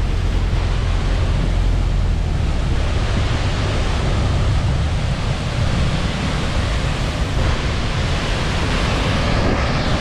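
Steady roar of a large waterfall pouring into the sea close by, with a heavy low rumble underneath.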